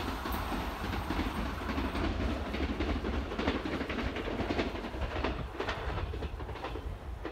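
JR East E257-series limited express electric train running away down the line, its wheels clattering over the rail joints in a run of clicks over a low rumble that slowly fades as it recedes.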